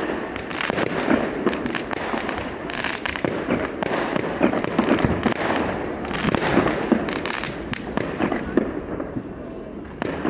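New Year's fireworks going off in a dense, unbroken barrage: many overlapping bangs, pops and crackles with no pause.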